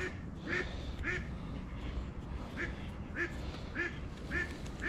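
A duck quacking over and over in a steady series, roughly one quack every half second or so, with a short break partway through.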